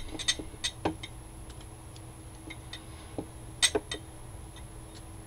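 Scattered light clicks and taps as a clear plastic shaker pocket is handled and water beads are added to it: a few in the first second, then a pair a little past the middle.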